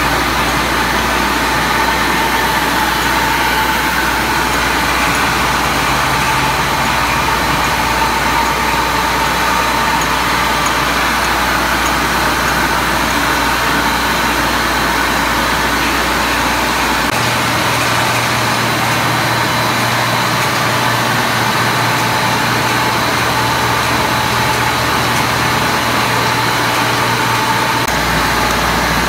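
Bottling-line machinery running steadily: a rotary filling and capping machine and a slat conveyor carrying glass bottles. It makes a continuous mechanical noise with a low hum underneath that changes pitch about two-thirds of the way through.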